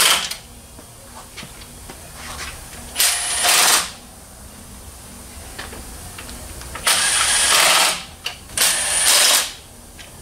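A power tool running down the timing front-cover bolts on an Infiniti 5.6 V8 in short bursts of just under a second each. One burst ends right at the start, then three more come about 3 s, 7 s and 8.5 s in, with quieter shop background between.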